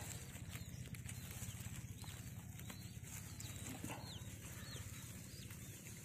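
Newly hatched quail chicks peeping faintly from the grass: about half a dozen short, high, falling peeps spread out over several seconds. A hand rustles through the grass stems underneath.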